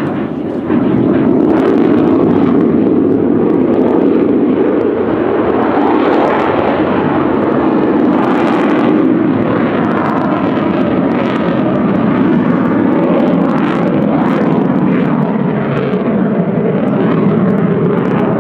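Mikoyan MiG-29's twin jet engines in a loud, steady roar as the fighter climbs away, with crackling throughout. The roar swells about a second in and then holds.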